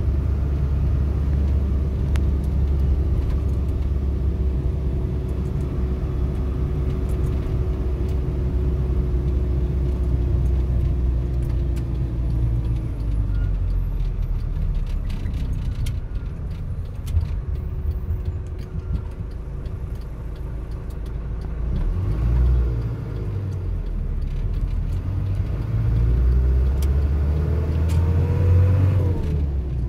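Car engine and road rumble heard from inside the cabin. The engine note falls slowly as the car slows over the first half, then rises twice as it pulls away and accelerates, and drops sharply near the end as it shifts up a gear.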